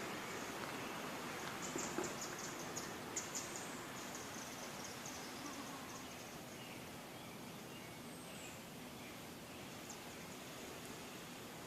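Steady outdoor hiss with faint high-pitched chirps and quick ticks from small birds, bunched about two to three seconds in, with a few more scattered later.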